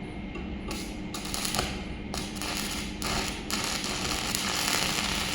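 Electric welding arc crackling: struck in short bursts three or four times, then held steadily from about three and a half seconds in, over a steady low hum.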